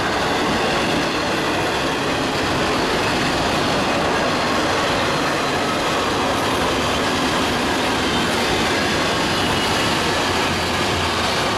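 Double-stack container freight train rolling past: steady, loud noise of steel wheels running on the rails as the loaded well cars go by.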